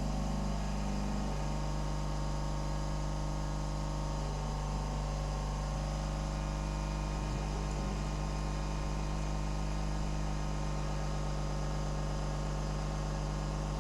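Steady electrical hum with fan noise from a hot air rework station left running on the repair bench.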